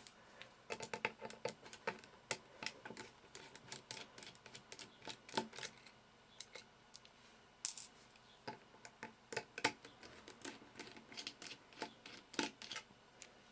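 Small screwdriver working the tiny screws out of a BlackBerry Curve 8520, with many faint, irregular clicks and ticks of the bit and of the plastic phone parts being handled, a few louder clicks among them.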